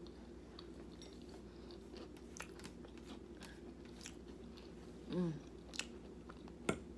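A person chewing a mouthful of biscuits and gravy close to the microphone, with soft wet mouth clicks over a steady low hum. About five seconds in comes a short voiced sound from the throat, and near the end a single sharp click.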